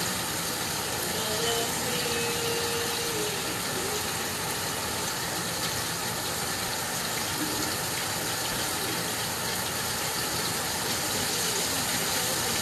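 Catfish deep-frying in hot oil: a steady sizzle that holds even throughout.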